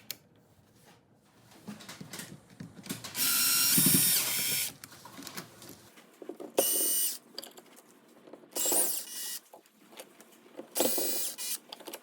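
Four short bursts of mechanical whirring with a ratchety edge, each lasting from about half a second to a second and a half, the first the longest.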